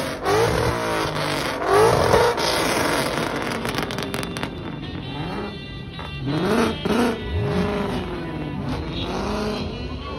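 Car engines revving hard in repeated blips, the pitch climbing and falling back, loudest about two seconds in and again around seven seconds in.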